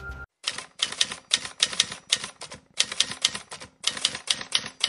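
Typewriter keys clacking in an irregular run, about five or six strikes a second with brief pauses, used as a sound effect under an on-screen text card.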